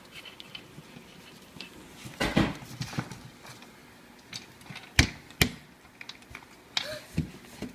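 A few scattered knocks and light clatters of small hard objects being handled and set down, the two sharpest close together about five seconds in.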